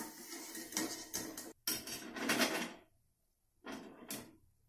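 Stainless-steel wire spider skimmer clinking and scraping against a steel kadai, then against a steel plate as freshly fried rice fryums are tipped off it. It comes as several short clatters, with a silent gap before one last clatter near the end.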